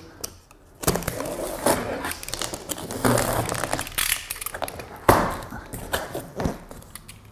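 Large cardboard box being opened: the tape is worked loose and the top flaps pulled apart, giving a series of cardboard scrapes, rustles and knocks.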